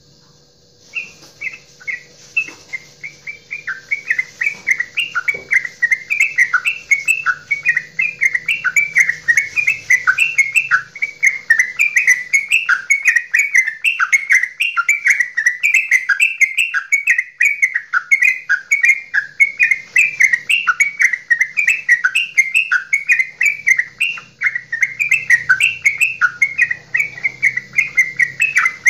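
Yellow-vented bulbul (trucukan) singing its goklikan: a long, fast chatter of quick bubbling notes that starts about a second in and runs on without a break.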